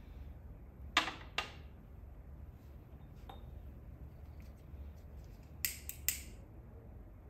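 Two light clinks of hard objects about a second in, then a hand-held lighter clicked three times in quick succession near the end while lighting a wooden stick, over a low room hum.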